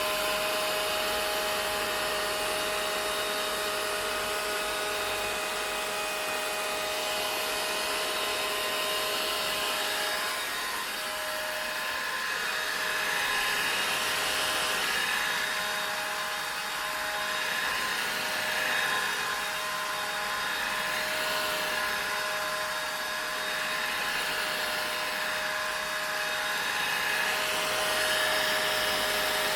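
Vacuum cleaner running steadily: an even rushing air noise with a constant motor whine, swelling and easing slightly every few seconds.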